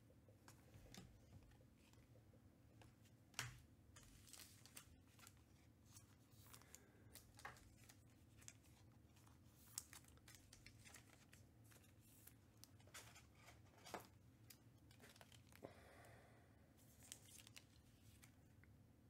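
Faint handling of trading-card packs and cards: scattered soft clicks and rustles of wrappers being torn open, with a longer crinkle near the end.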